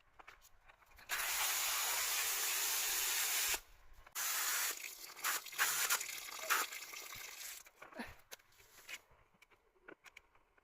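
Running water rinsing freshly harvested baby potatoes, with a break of about half a second around three and a half seconds in, then flowing again with scattered knocks and rubbing of the potatoes before it stops near the end.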